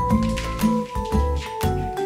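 Background music with a steady beat: a bass note about twice a second under held melody notes.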